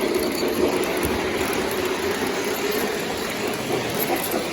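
O gauge model trains running on the layout's track, a steady whirring rumble of motors and wheels on rail.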